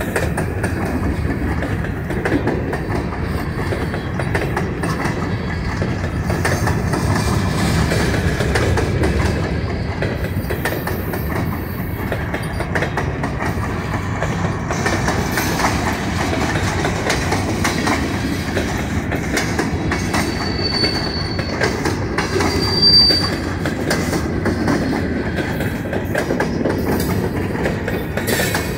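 Railroad cars rolling past with a steady rumble and wheels clicking over rail joints. Two brief high-pitched wheel squeals come about two-thirds of the way through, the second the louder.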